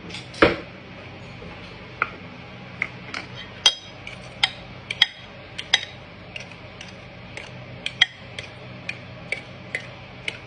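A utensil clinking against a mixing bowl while cookie dough is being mixed by hand: short, sharp clinks at about two a second, unevenly spaced, with one louder knock near the start.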